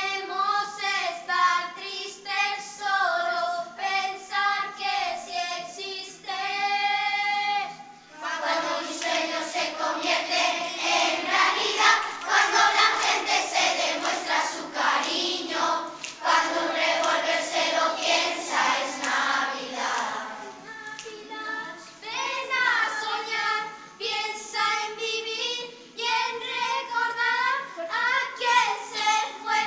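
Children singing a Christmas song, a young soloist's voice carried through a microphone. After about eight seconds a whole group of children joins in together for about twelve seconds, then fewer voices carry on.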